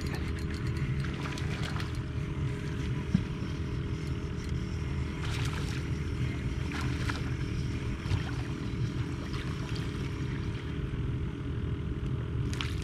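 Steady low hum of a boat motor running, with a few faint clicks and light splashes as a small speckled sea trout is reeled to the boat.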